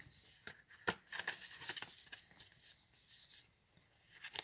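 A CD case being handled: a few faint clicks, the loudest about a second in, and light rustling and rubbing.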